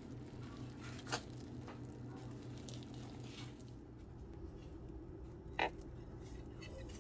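Quiet kitchen room tone with a low, steady hum, broken by a couple of light clicks: one about a second in and one later on.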